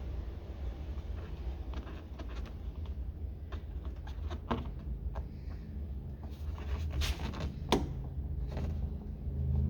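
Scattered clicks, taps and scrapes of a tool prying at the retaining clip of a car door's window crank handle, with a few sharper clicks about four and a half seconds in and near seven and eight seconds, over a steady low hum.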